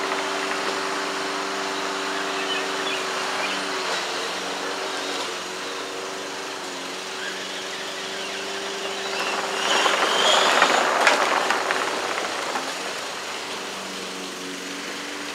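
Electric drive motors and gearboxes of a radio-controlled Power Wheels Ford F-150 ride-on truck running steadily under a 30 lb load, a low whine that shifts slightly in pitch as it drives. A louder rush of noise swells and fades about two-thirds of the way through.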